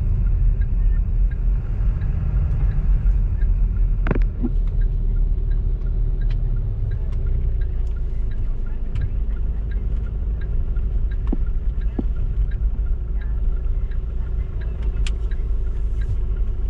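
Steady low rumble of a car driving, heard from inside the cabin, with a couple of short sharp clicks.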